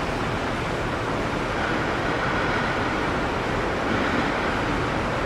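Steady rushing background noise with no distinct events, even in level throughout.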